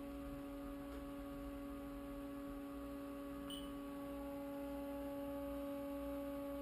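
Steady electrical hum of a powered-up Haas CNC vertical mill, several steady tones over a low rumble. A faint, brief chirp about halfway through.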